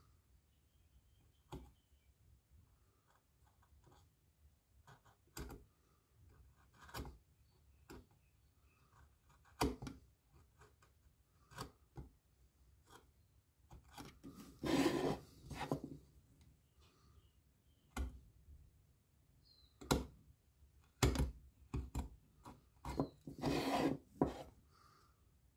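Wooden parts being handled and worked by hand: scattered light knocks and clicks, with two longer stretches of rubbing, one about halfway through and one near the end.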